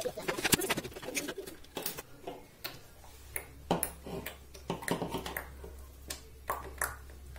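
Wooden tea-stirrer sticks cut with pliers and handled on a wooden table: a string of sharp clicks and snaps, busiest in the first second. A low steady hum sets in about three seconds in.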